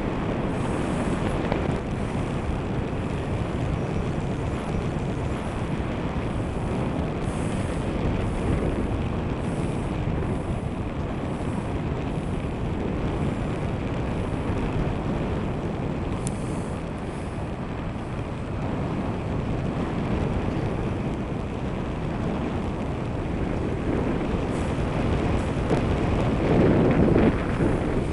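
Steady wind rushing and buffeting over the camera microphone in flight, louder in a stronger gust near the end.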